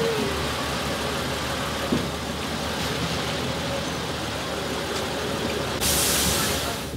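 City bus running at a stop, with a steady engine hum and street noise around it. Near the end a loud hiss lasts about a second.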